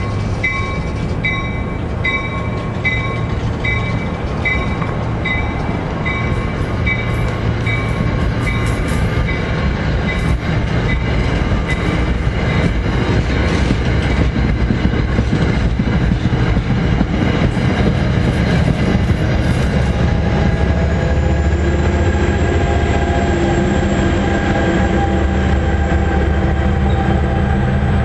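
A commuter train running past at speed with a continuous heavy rumble. During the first third, a ringing tone repeats about every three-quarters of a second and then fades out. The rumble grows a little louder in the last third, with a thin high whine over it.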